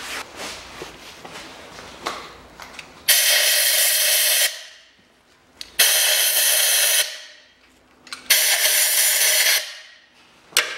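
Compressed-air blow gun blasting into the spark plug wells three times, each a loud hiss of about a second, to blow out the wells before the plugs come out. A few light handling clicks come before the first blast and a sharp click near the end.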